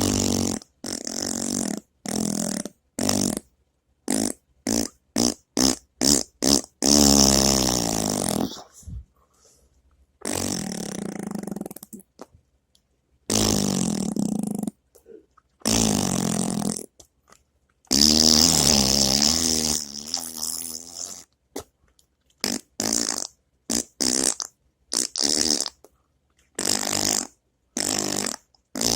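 A long run of fart sounds, one after another: many short blasts and several longer ones of one to three seconds with a buzzing pitch that wobbles up and down, each cut off into dead silence before the next.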